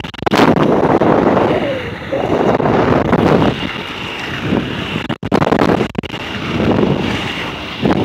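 Wind rushing over a handheld phone microphone at speed, mixed with the rolling of 110 mm MPC inline speed skate wheels on pavement, swelling and easing every second or two.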